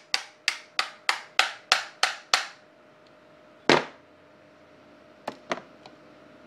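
Sharp taps, about three a second, of a magazine used as a hammer to drive the takedown pin out of a Colt M1911A1 airsoft spring pistol. Then one heavier knock and two light clicks.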